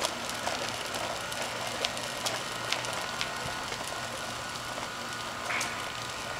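Plastic wheels of a child's tricycle rolling over a brick sidewalk: a steady rolling rattle with scattered sharp clicks and a small bump about five and a half seconds in.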